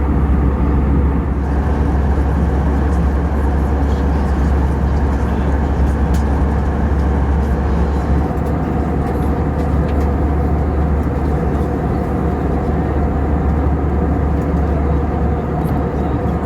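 Airbus A320 cabin noise in flight: a steady low rumble of the engines and rushing airflow.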